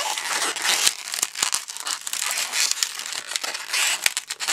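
Long latex modelling balloon being twisted and pinched into small pinch-twist bubbles by hand: continuous rubbery rubbing and rustling of the latex against the fingers, with many sharp little clicks.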